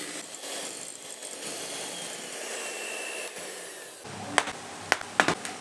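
Oster electric hand mixer running steadily, its beaters whipping whipped-cream frosting in a stainless steel bowl. About four seconds in it gives way to a few sharp clicks and knocks.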